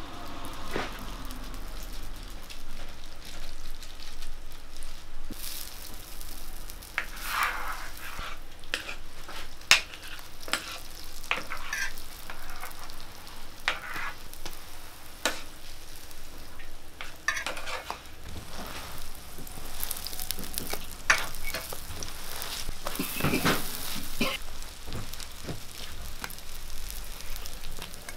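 Sweet pumpkin hotteok (filled Korean pancakes) frying in oil on a flat griddle, sizzling steadily. Scattered sharp clicks and scrapes come from the metal press and tongs on the griddle.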